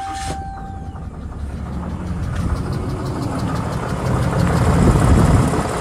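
A cold 6.7 Cummins inline-six diesel in a 2022 Ram 3500, just fired up and idling with a ticking knock, growing louder towards the end. The owner takes the sound for compression escaping through the intake and an internal bottom-end knock, a sign of engine failure, not lifters. A dashboard chime sounds steadily in the first second.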